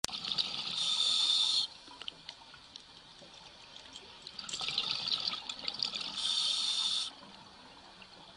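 Underwater bubbling and hiss in two bursts a few seconds long, each ending in a steadier hiss that cuts off suddenly: a diver's breathing heard through the water.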